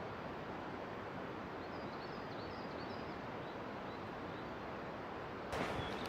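Steady hiss of a forest in light rain, with a small bird calling in a quick series of short, high chirps from about two seconds in. Near the end a sudden louder rush of noise comes in.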